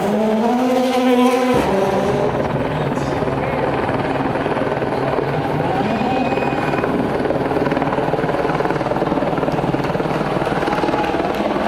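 An engine revving, rising in pitch for about a second and a half, then a sudden change to a steady mechanical drone.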